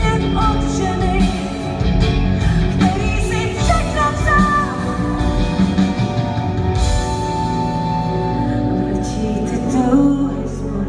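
Rock band playing a song with singing over it, the sung line bending up and down, then a long held note about two-thirds of the way through.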